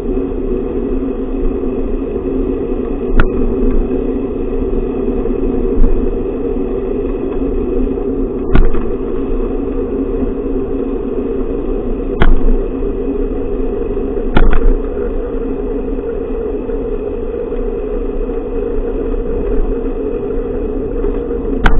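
Loud, steady rumbling drone of a bicycle ride picked up through a camera clamped to the handlebars, with a sharp knock every few seconds. This is the muddy ride noise that spoils this camera's sound.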